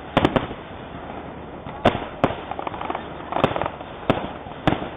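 Fireworks grand finale: aerial shells bursting in a rapid, irregular string of sharp bangs, some in tight clusters, over a constant background rumble.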